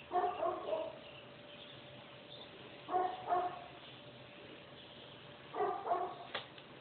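A dog barking in three pairs of short barks, each pair about two and a half seconds after the last.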